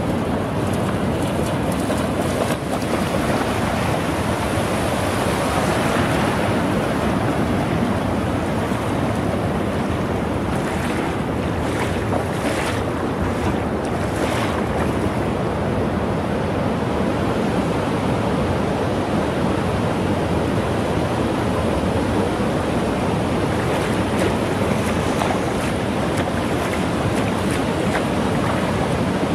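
Ocean surf breaking and washing up a sandy beach: a steady rushing of water.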